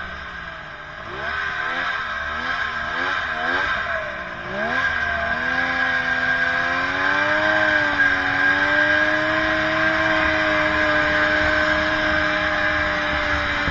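Snowmobile engine under way, its pitch pulsing up and down for the first few seconds as the throttle is worked, then opening up about five seconds in and holding a steady, slowly rising note at speed.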